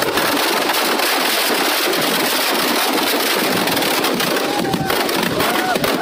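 Firecrackers packed into a burning Ravana effigy going off: a dense, continuous crackle of many small bangs, with a few short whistles near the end.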